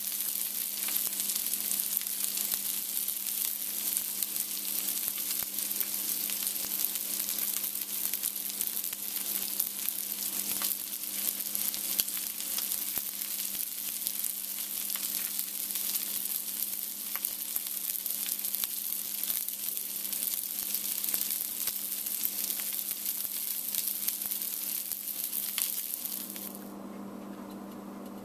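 Irish rashers, sausages and white pudding frying in a little olive oil in a pan: a steady dense sizzle with occasional sharper pops. Near the end the sizzling cuts off suddenly, leaving a low steady hum.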